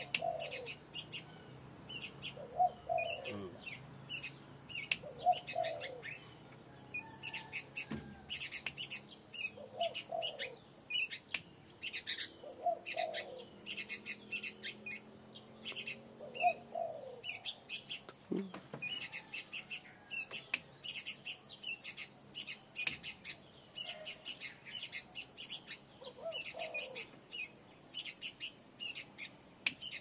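Small birds chirping and twittering in quick high notes throughout, with a spotted dove's short low coos coming every few seconds, about eight in all.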